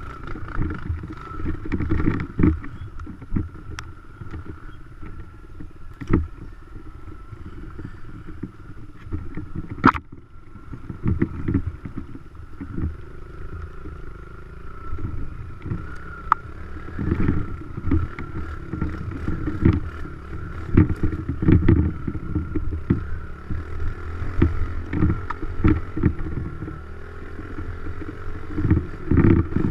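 Dirt bike engine running at low speed over rough ground, rising and falling irregularly, with a steady high note and frequent sharp knocks and rattles.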